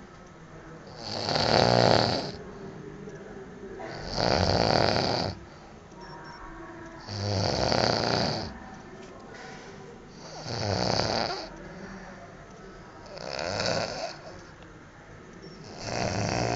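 A sleeping man snoring loudly and rhythmically, with six rasping snores about a second long, one roughly every three seconds, and quieter breathing between them.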